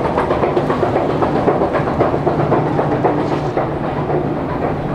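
Stockholm metro train running on the rails, wheels clattering over the track with a steady low hum underneath.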